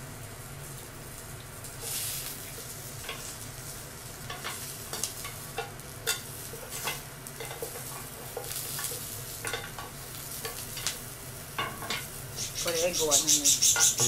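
Shrimp and vegetables sizzling on an electric tabletop grill plate, with short clicks of tongs and chopsticks against the plate as the food is turned. The sizzling swells louder near the end.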